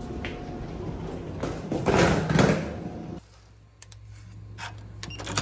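Elevator doors sliding open, the noisy run loudest about two seconds in. After an abrupt drop to quiet, a few short light clicks as a key card is held to a hotel room door lock.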